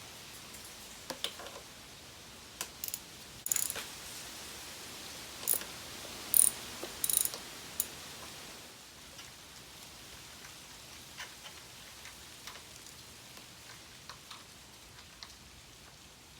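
Hand tools and metal parts clicking and clinking during motorcycle fork disassembly: irregular sharp metallic clicks, the loudest a cluster of ringing clinks in the middle, then fainter ticks near the end.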